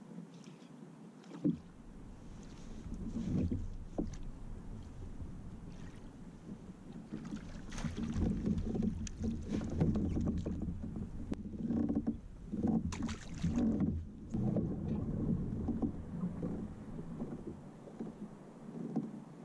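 A hooked bass splashing at the surface and being scooped into a landing net beside a plastic fishing kayak, with irregular splashes and knocks, busiest in the middle. A low wind rumble on the microphone runs under most of it.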